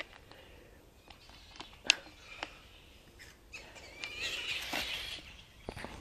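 Clear plastic containers being handled against a wire-mesh cage: scattered light clicks and knocks, the sharpest about two seconds in, with a stretch of rustling about four seconds in.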